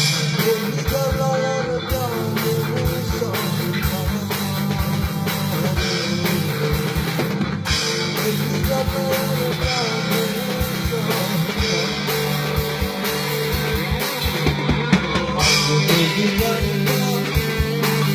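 Rock band jamming: a drum kit keeps a steady beat under guitar.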